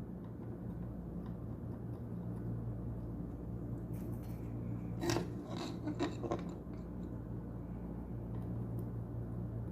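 Light metallic clicks and taps of small hand tools working on a circuit board, a few close together about four to six seconds in, as a component is being removed. A steady low electrical hum runs underneath.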